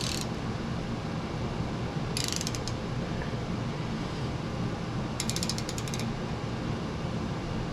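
Hand ratchet wrench clicking in two short runs of rapid ticks as it is swung back between strokes, snugging down the nut on the bottom of a mini bike's fork stem. A steady low hum runs underneath.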